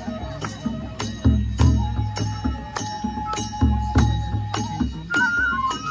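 Bodo folk dance music: a flute holds one long note, then plays a short higher phrase near the end, over an even beat of drum strokes about three a second with jingling percussion.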